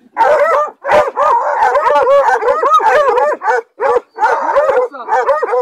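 Dogs yelping in rapid, repeated calls that rise and fall in pitch, several overlapping, with short breaks about a second in and again near four seconds.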